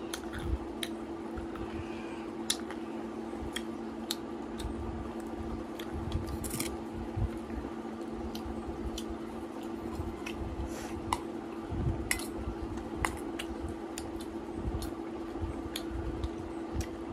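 Eating noises: crunching and chewing of crisp food, with scattered sharp clicks of a spoon against a steel food container, over a steady low hum.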